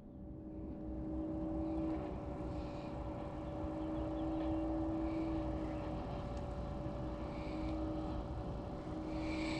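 Steady distant motor hum: one constant tone with a lower second tone that fades in and out several times, over a low rumble.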